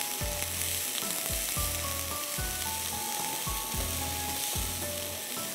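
Chopped onions sizzling in a tablespoon of olive oil in a nonstick frying pan as they are stirred with a silicone spatula, being softened without browning. Soft background music plays underneath.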